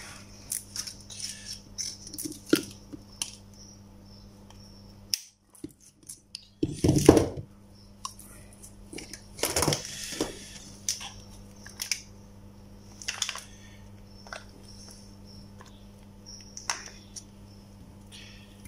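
Bench handling noises from a small 12 V DC compressor motor being reassembled: irregular clicks, taps and scrapes of the metal armature, a small tool and the plastic end cap with its bearing. The loudest is a knock about seven seconds in, then a longer scrape about ten seconds in, over a faint steady hum. The sound briefly drops out around five seconds in.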